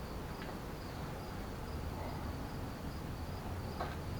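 Crickets chirping in a steady high trill over a low background rumble, with a couple of faint clicks.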